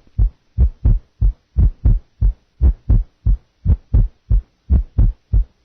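Recorded heart sounds with a late diastolic murmur, the heart beating about once a second. Short low-pitched thuds come in a steady rhythm, three to each beat.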